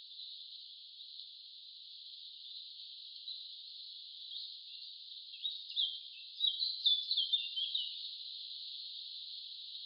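A steady, thin, high insect-like hiss, with a quick run of short bird chirps a little past halfway.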